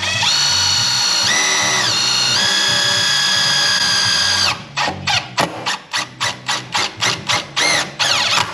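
Cordless drill-driver driving a screw into the head of an aluminium door frame. The motor runs in a long steady whine that steps up in pitch and back down, then the trigger is pulsed in short spurts, about three a second, each spinning up and down.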